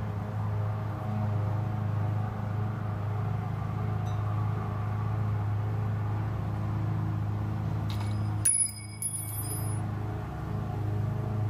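Electric motor of a motorized flip-down ceiling TV mount running steadily as it lowers and tilts the screen, a low even hum. About eight and a half seconds in comes a brief burst of high ringing tones.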